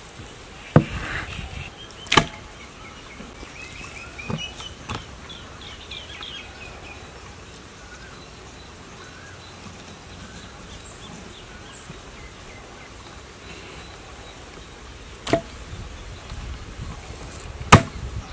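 A knife cutting through raw pork belly on a wooden cutting board: a handful of sharp, widely spaced knocks as the blade strikes the board. Faint bird chirps a few seconds in.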